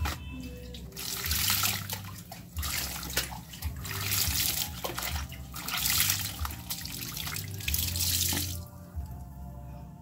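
Water poured from a jug splashing onto socks in a concrete washboard sink as they are rinsed, in uneven surges from about a second in until it stops near the end. Soft background music runs underneath.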